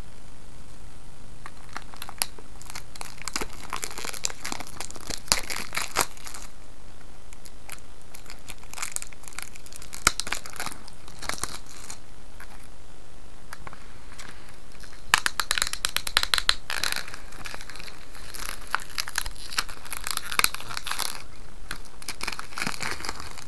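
Plastic shrink-wrap on a five-pack of DVD-RW cases being picked at and peeled off by hand: crinkling and tearing in irregular bursts with sharp little crackles, busiest in the second half.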